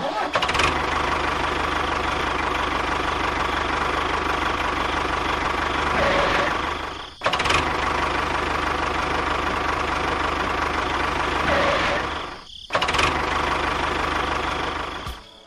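Tractor engine running steadily, heard in three stretches that each start abruptly and fade away, with two short breaks between them.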